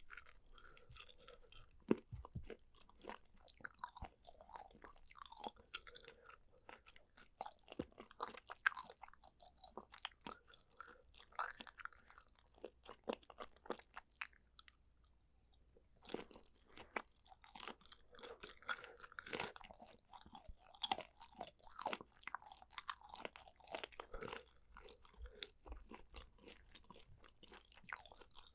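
A person chewing food close to the microphone, with many small wet clicks and crunches in an irregular stream; the chewing stops for about two seconds around the middle, then resumes.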